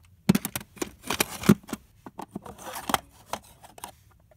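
Plastic cassette tape cases being handled: a quick, irregular run of clacks and knocks as they are picked up and knocked against each other, with short scrapes as they slide. The loudest knocks come near the start and about a second and a half in.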